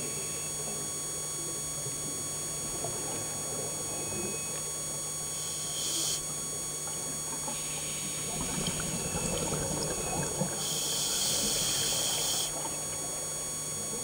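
Scuba diver breathing through a regulator, heard underwater: a short hiss of inhalation before halfway, then a bubbling rumble of exhaled bubbles, then a longer inhalation hiss near the end. A steady electrical hum and whine from the camera sit underneath throughout.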